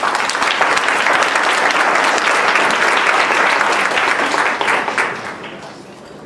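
Audience applauding: dense clapping that dies away about five seconds in.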